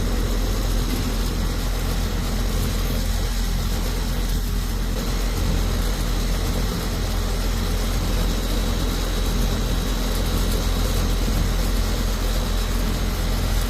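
Air-conditioning condensing unit running steadily: an even rush of fan air over a constant low hum, with a faint steady high tone.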